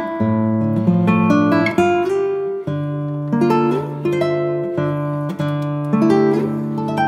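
Background music: acoustic guitar playing plucked notes and strummed chords.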